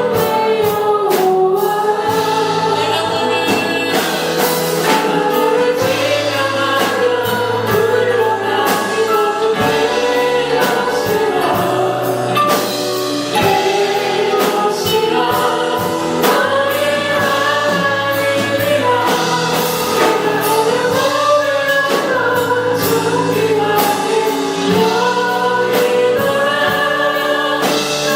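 Congregation or choir singing a praise song with band accompaniment: many voices together over a steady bass line and beat.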